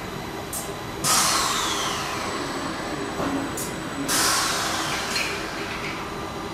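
Two sudden blasts of compressed air about three seconds apart, each hissing away over a second or so with a falling whistle. They are typical of a pneumatic gripper on an industrial robot arm venting air as it actuates, over the steady hum of the robot cell.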